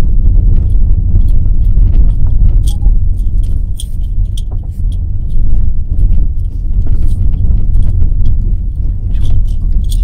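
Car driving, heard from inside the cabin: a steady low road-and-engine rumble, with light rattling and jingling clicks scattered through it.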